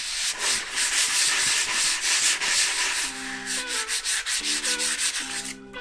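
Hand sanding of a teak floorboard: a small sheet of sandpaper rubbed back and forth over the wood in quick, light, scratchy strokes that stop just before the end. Faint guitar music comes in about halfway through.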